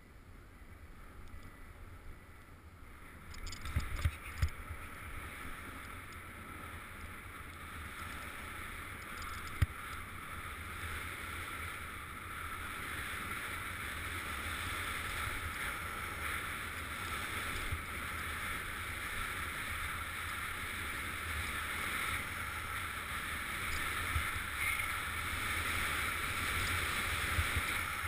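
Snowboard sliding through powder snow, a steady rushing hiss that grows louder as speed builds, with wind rumbling on the camera's microphone. A few knocks come about four seconds in, and a single sharp click near ten seconds.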